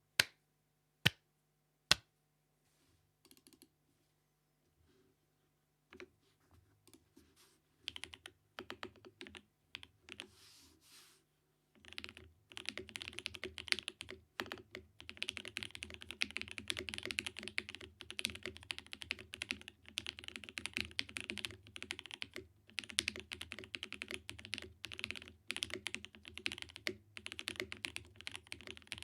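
Mechanical keyboard being typed on. It has Alpaca v2 linear switches lubed with Krytox 205g0 and filmed, an FR4 plate and GMK doubleshot keycaps. There are three sharp single keystrokes in the first two seconds, scattered keypresses after that, then steady, fast typing from about twelve seconds in.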